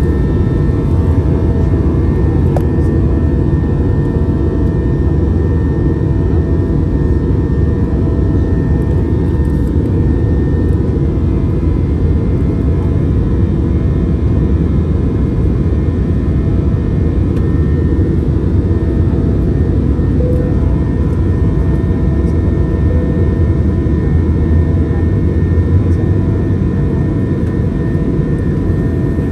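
Steady engine and airflow noise inside an airliner's cabin in motion: a constant low rumble with a faint steady hum over it, unchanging throughout.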